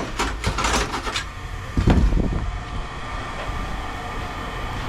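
Scrap metal clanking and rattling in quick succession for about a second, then a heavy thud about two seconds in, over a steady mechanical rumble.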